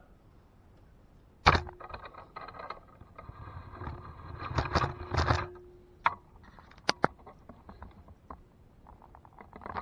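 Handling knocks, rattles and scrapes at a workbench: one sharp loud knock about a second and a half in, a few seconds of clattering and scraping, then scattered light clicks.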